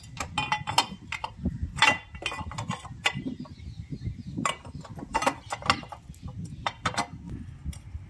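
Irregular clicks, knocks and metallic clinks of a motorcycle's plastic chain cover being pressed back into place over the front sprocket and its bolt being started with a T-spanner.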